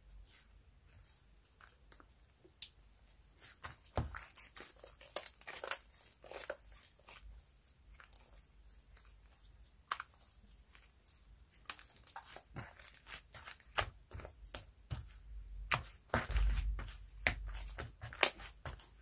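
Hands stretching, folding and squeezing a soft pink slime kneaded with lightweight air-dry clay (Iclay). It gives sticky clicks and crackly little pops, sparse at first and coming thick and fast in the second half, with a dull thump about three-quarters of the way through.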